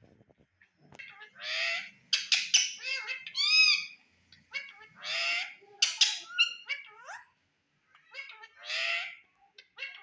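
Indian ringneck parakeet calling: three harsh squawks, about 1.5, 5 and 9 seconds in, with short arched whistled notes and quick chirps between them.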